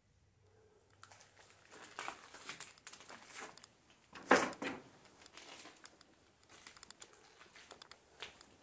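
Crackling, crinkling debris, with one loud crunch about four seconds in.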